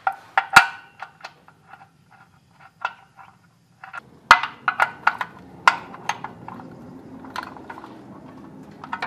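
Metal tools clinking and clicking as a socket on an extension bar works the 17 mm steel sump plug back into the oil pan through the bash plate. The clicks are irregular, with two sharper knocks, about half a second in and about four seconds in.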